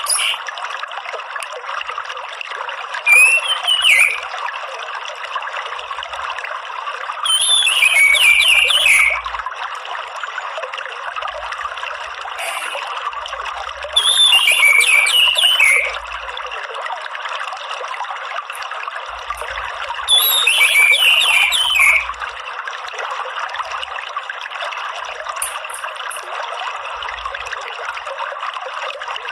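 Orange-headed thrush giving its soft twittering 'ngeriwik' call: four short bursts of quick falling chirps, each one to two seconds long and several seconds apart, over a steady trickle of running water.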